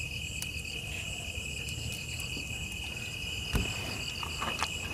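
Crickets chirring steadily in a high, even drone, with one short soft knock about three and a half seconds in.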